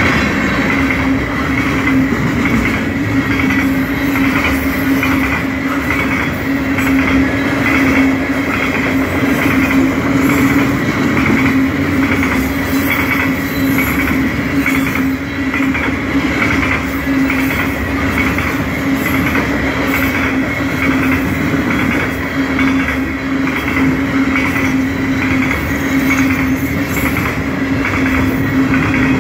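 Freight train of mostly empty covered hopper cars rolling steadily past, steel wheels clacking and rumbling over the rails in a continuous run of repeating beats.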